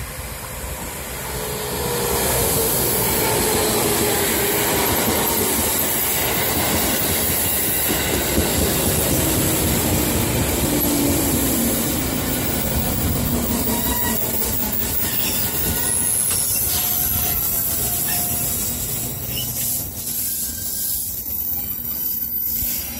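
JR Kyushu 811 series electric multiple unit running close by while slowing to arrive at the station: a steady rumble of wheels on rails, with a motor whine that falls slowly in pitch as it slows and thin high squeals from the wheels. The noise grows about two seconds in and fades near the end as the last cars go by.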